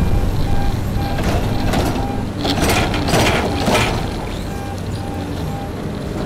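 XCMG bored-pile drilling rig's diesel engine running steadily, with its warning alarm beeping about twice a second. Between about one and four seconds in, several harsh hissing, scraping bursts rise over it as the mud-caked auger is lifted and swung.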